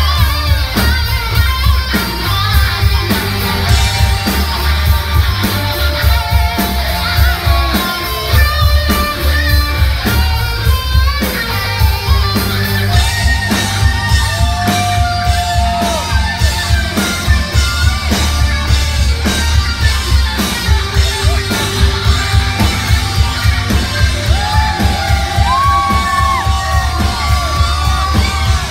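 Reggae-rock band playing live in a large hall: electric guitar, bass and drums with a steady beat under sung vocals.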